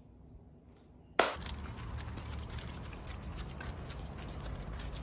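Near silence, then about a second in a sudden switch to outdoor sound: a steady low rumble of wind on the microphone with a quick run of light footfalls of someone jogging.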